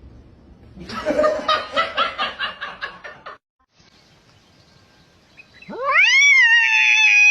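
A domestic cat giving a long, loud meow about six seconds in that rises steeply, holds its pitch and then slides down. Earlier, about a second in, a fast stuttering run of short sounds lasts about two seconds.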